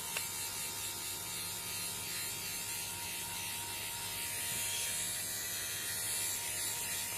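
Battery-powered fabric shaver (lint remover) running steadily, its small motor whirring as it trims pilled, fuzzy fibres off a stuffed toy.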